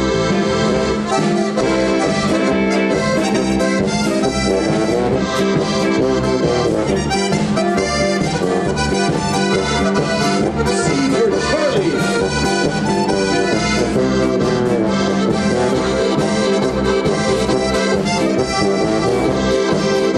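Diatonic button accordion (a Pečjak button box) playing a solo tune over the band's continuous accompaniment, with a steady bass pulse beneath.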